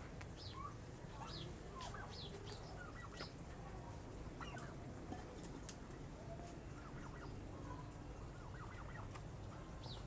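A flock of domestic turkeys calling faintly: scattered clucks and short, high, falling chirps. A sharp click comes about five and a half seconds in.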